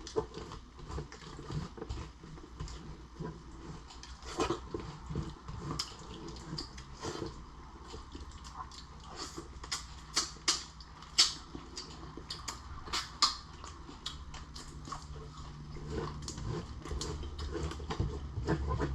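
Close-up eating of cooked shrimp and lobster: chewing, with irregular sharp clicks and crunches, loudest about ten to thirteen seconds in.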